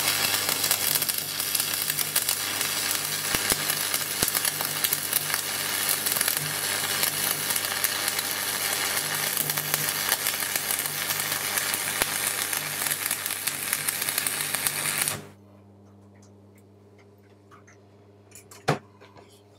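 Stick arc welding, DC electrode negative, from a transformer buzzbox welder run through a bridge rectifier: a steady crackling arc over a hum. About fifteen seconds in, the arc breaks off suddenly, and the welder's hum carries on with a single click near the end.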